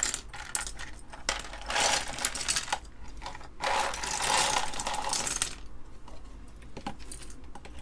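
Loose plastic keycaps clattering and rattling as they are handled, in two stretches of a second or two each, with scattered clicks between.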